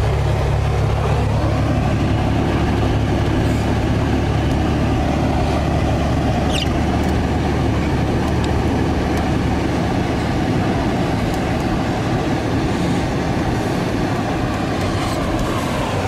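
Steady road and engine noise heard inside a moving car's cabin, a low rumble from tyres running on a snow-covered road. A brief rising squeak sounds once, about six and a half seconds in.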